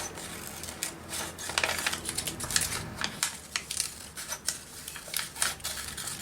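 Scissors cutting paper: a run of short, irregular snips.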